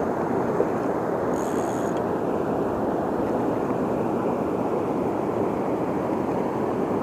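Steady rush of river water flowing over a low weir and rocks, an even noise with no breaks.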